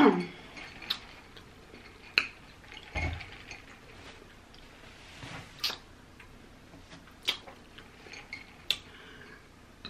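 Close-miked mouth sounds of someone chewing fried chicken: soft wet clicks and smacks every second or two, with a low thump about three seconds in.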